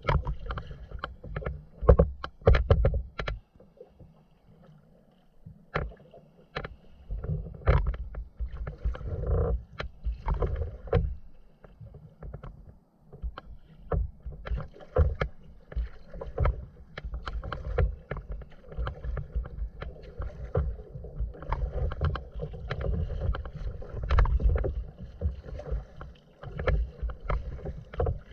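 Inflatable kayak being paddled through choppy water: irregular splashes of the paddle blades and slaps of small waves against the hull, over a low rumble that swells and fades.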